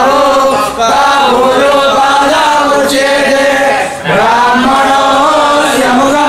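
A large group of men chanting devotional verses loudly in unison. The chant runs continuously, broken only by two short pauses, just under a second in and at about four seconds.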